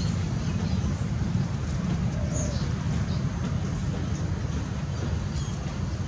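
Outdoor ambience: a steady low rumble, with a few faint, short high chirps now and then.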